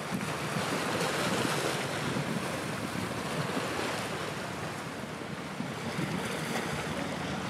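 Steady wash of wind and sea: wind on the microphone over the rush of waves, with no distinct engine, horn or bird call standing out.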